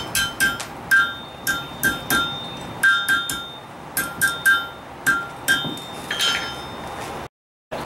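Blacksmith's hand hammer striking a red-hot iron rod on an anvil, about fifteen blows in quick pairs and threes, each with a bright ring from the anvil. The sound drops out for a moment near the end.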